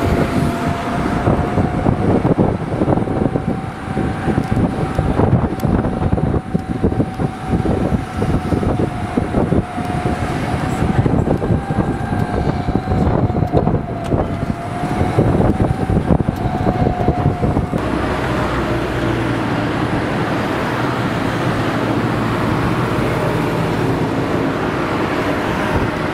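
Golf cart riding along with a steady whine over a constant rattle of knocks and bumps. About two-thirds of the way through, the rattle gives way to a smoother, lower running noise.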